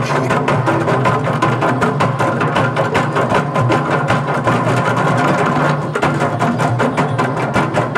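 Drum ensemble of tall standing hand drums and horizontal wooden drums playing a fast, dense, steady rhythm.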